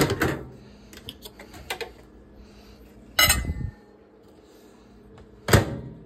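Panasonic microwave oven door being opened and shut, its latch and door giving three loud clunks: at the start, about three seconds in, and near the end. A few light clinks of metal and dishware come between the first two.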